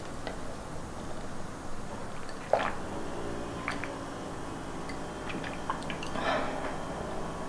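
Wet mouth sounds of a person sipping from a mug, with small clicks and two brief slurps or swallows, about two and a half and six seconds in, over a low steady hum.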